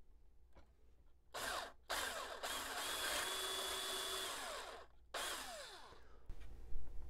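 Handheld power drill with a 3/8-inch bit boring through the Monokote-covered side of a balsa model plane's fuselage. The drill runs in three goes: a short burst about a second and a half in, a steady run of about three seconds, and a final burst of about a second that stops near six seconds in.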